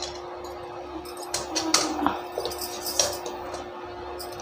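A few light clinks and knocks of a metal kitchen utensil against a frying pan, spread through the middle seconds, over a steady low hum.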